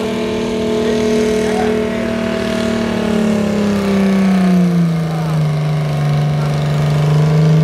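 Vintage Fordson tractor's diesel engine working flat out while pulling a weight-transfer sled, front wheels lifting. About halfway through, the engine note drops and stays lower as it lugs down under the growing load.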